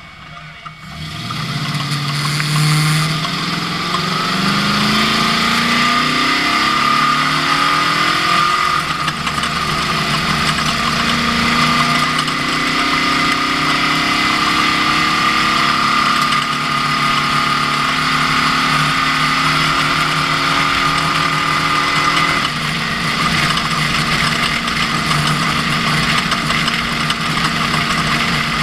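Ford Ranger off-road race truck's engine pulling away and accelerating, its pitch climbing through several gear changes over the first several seconds. It then runs steadily at speed with a constant high whine, and the engine note changes about two-thirds of the way through.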